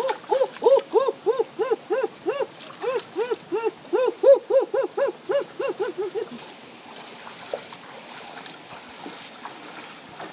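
A frog calling close by: a rapid series of about thirty short, rising-and-falling notes, about four a second, stopping about six seconds in.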